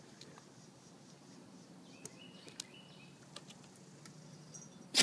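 Dog and cat scuffling on a wooden deck: quiet, with a few faint scattered taps and clicks and a short high chirp about halfway through, then a single sharp knock near the end.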